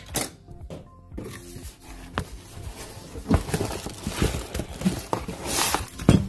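Plastic packaging crinkling and a cardboard box being rummaged as packed knives are lifted out, with scattered knocks and clicks of handling and a louder knock near the end.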